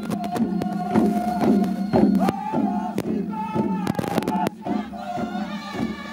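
Kai dance song: a group of dancers chanting and singing together over quickly beaten long wooden hand drums, with shouts rising from the group.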